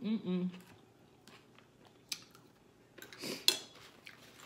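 Table eating sounds: a short 'mm' hum at the start, then light clicks of a plastic fork on a plate and chewing. A paper napkin crackles briefly about three seconds in, the loudest sound.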